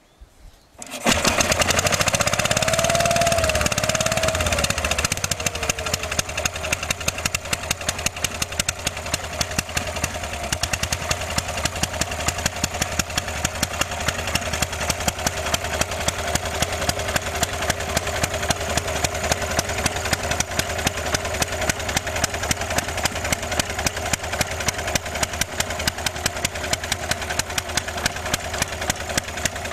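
Small engine of an old hay tractor running: it comes in about a second in, speeds up and drops back over the next few seconds, then settles into a steady idle with even firing beats.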